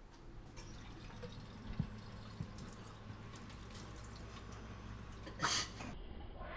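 Drinking fountain running, its water stream splashing over a steady low hum, with a short, louder rush of noise about five and a half seconds in.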